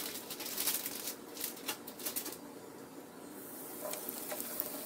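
Hot cooking oil crackling and popping in a pot, then a steady sizzle building a little past halfway as a battered jackfruit patty is lowered into the oil to deep-fry.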